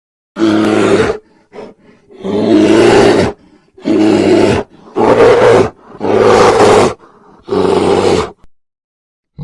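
Brown bear growling: six loud growls in a row, each about a second long, with a couple of brief, quieter sounds between the first two.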